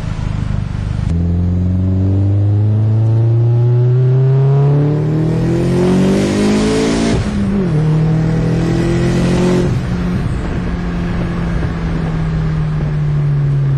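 Big-turbo Volkswagen Jetta 1.8T turbocharged four-cylinder heard from inside the cabin, pulling hard under acceleration with its note rising for several seconds. A rush of hiss comes at the top of the pull, and the pitch then drops sharply about seven seconds in. It pulls again briefly, and over the last few seconds the engine note falls slowly as the car eases off.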